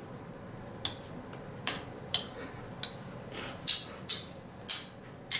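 Light, sharp clicks and taps of plastic toy padlocks and keys being handled on a table, about eight of them at uneven intervals.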